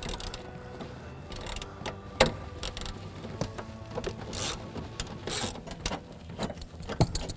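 Hand ratchet with a 10 mm socket and extension clicking in short, irregular runs as a bolt is backed out, with a sharper click about two seconds in and a few more near the end.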